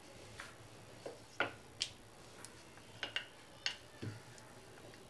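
Wooden rolling pin rolling out a luchi of wheat dough on a granite worktop: faint, irregular light clicks and taps, about eight, as the pin knocks on the stone.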